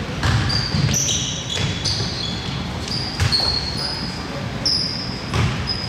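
Basketball game sounds in a large gym: the ball thudding on the floor and sneakers squeaking in short high chirps, with scattered knocks.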